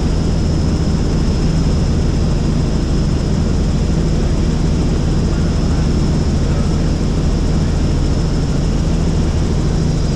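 Helicopter in flight, heard from inside: a loud, steady drone of the rotor and engine with a thin, high, steady whine on top.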